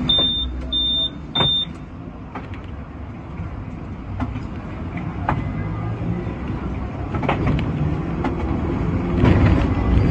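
Hong Kong double-decker electric tram pulling away from a stop and running along its street track, a low steady rumble with scattered knocks, louder near the end. Three short high beeps sound in the first two seconds.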